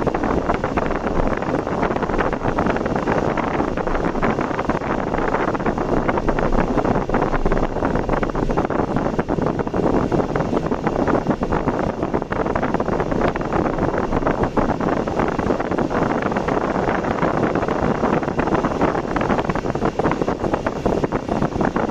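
Car driving along the road: a steady, even rush of road and wind noise with no clear engine note.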